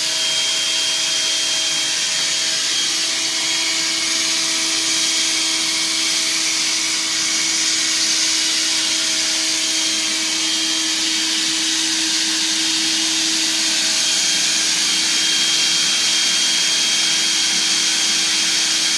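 Stick vacuum cleaner running steadily: a constant rushing hiss with a steady motor hum and whine.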